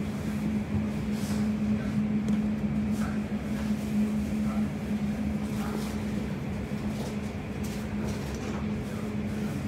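Interior running noise of a Class 345 electric train under way: a steady low hum over rumble, with a few faint clicks now and then.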